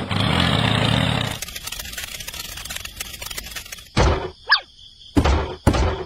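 Cartoon sound effects: about a second of tractor engine rumble, then a fainter rough texture, then three heavy thuds in the second half, with a short squeaky whistle rising and falling between the first two thuds.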